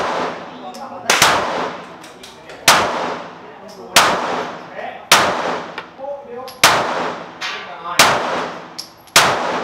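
Glock 17 9 mm pistol fired at a slow, steady pace, about seven shots roughly a second and a quarter apart. Each sharp crack is followed by a ringing tail, with a few fainter shots in between.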